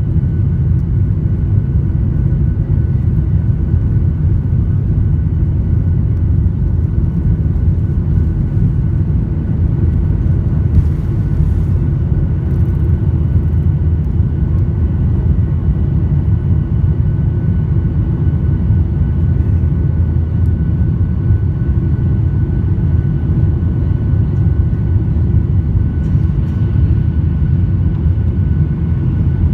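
Cabin noise of a Boeing 737-800's CFM56 jet engines running: a loud, steady low rumble with thin, steady whining tones above it.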